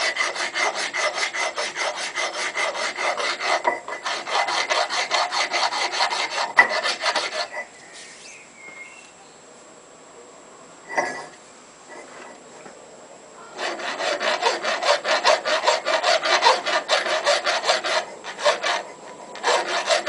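Hand file rasping across the edge of a steel railroad-track anvil in quick, even back-and-forth strokes, deburring and rounding the edge. The filing stops for several seconds partway through, with a single knock in the pause, then starts again.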